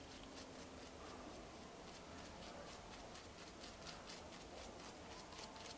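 Faint, quick scratching strokes of a paintbrush working paint onto fabric through a card stencil, about four strokes a second.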